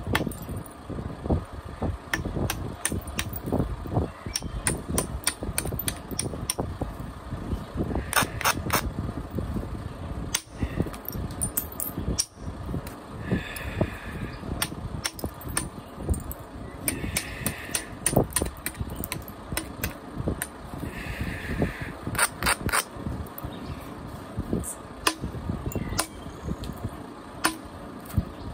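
A hand billet repeatedly striking the edge of a stone flake held on a leather pad: an irregular run of sharp taps and clicks as flakes are knocked off during percussion flintknapping.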